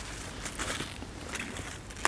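Chard leaves and stalks rustling as they are picked by hand, in a few short crackling bursts.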